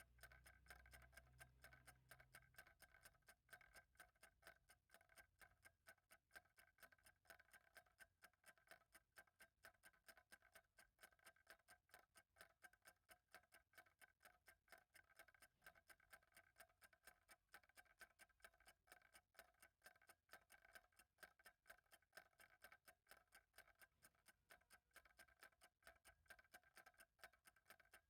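Faint clock ticking at a steady, even rate, each tick short and slightly ringing.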